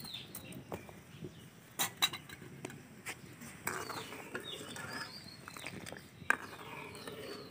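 Steel ladle stirring milk in an aluminium kadai, scraping and clinking against the pan, with a few sharp metal knocks. Birds chirp faintly in the background.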